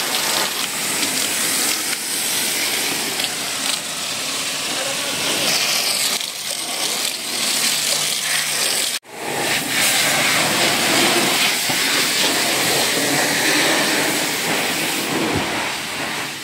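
Car-wash foam lance spraying foam onto a car's bodywork: a loud, steady hiss, cut off for an instant about nine seconds in.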